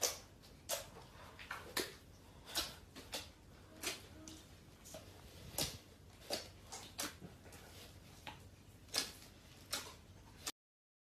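Slime being squished and worked by hand, giving irregular sticky clicks, about one or two a second. The sound cuts out to dead silence just before the end.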